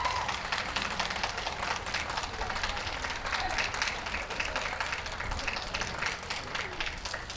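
Spectator applause: many hands clapping steadily, thinning out near the end.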